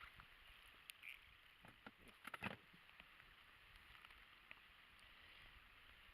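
Near silence with a few faint clicks and knocks, a quick cluster of them about two and a half seconds in.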